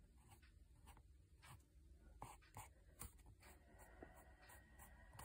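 Faint, quick shading strokes rubbing across lined notebook paper, about two or three a second, as more shading is added to a pencil drawing.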